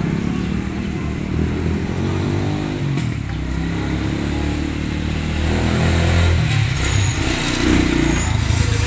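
Motorcycle engine running close by, its pitch rising and falling, then growing louder again past the middle.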